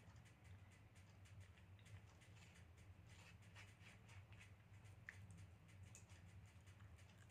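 Faint scraping and small clicks of a spoon scooping soft avocado flesh out of its skin, over a low steady hum.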